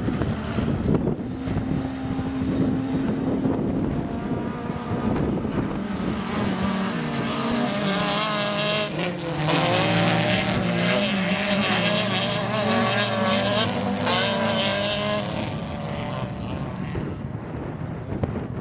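Several autocross race cars' engines revving hard, rising and falling in pitch, loudest between about 8 and 15 seconds in and fading near the end.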